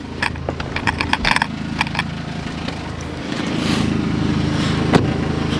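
Audi S3's turbocharged four-cylinder engine idling with its diverter valve removed, with a row of sharp clicks and knocks in the first two seconds and another click about five seconds in. The engine sound grows a little fuller a bit past three seconds in.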